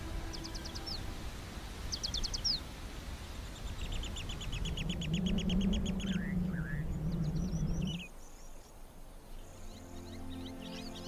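Wild birds calling: several rapid, evenly pulsed trills and short chirps, a few descending whistled notes, over a low rumble of wind and bush ambience. The rumble drops off about eight seconds in, and soft music comes back near the end.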